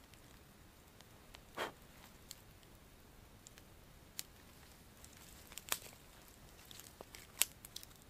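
Faint, sparse clicks and small crackles, with a brief rustle about a second and a half in and the sharpest click near the end, from camp gear being handled at a small fire.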